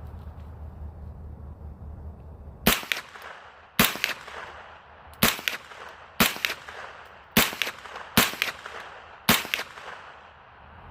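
Bear Creek Arsenal AR-15 pistol caliber carbine in 9mm firing semi-automatic: seven single shots, about a second apart, starting a few seconds in, each with a short echo.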